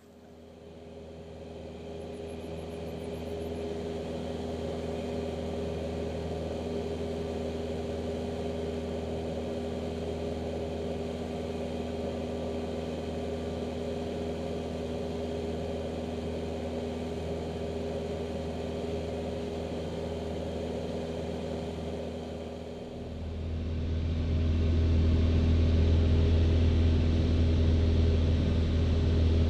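Single-engine light airplane's piston engine and propeller droning steadily in cruise, heard from on board. It fades in over the first few seconds, and about 23 seconds in it becomes louder with a heavier low rumble.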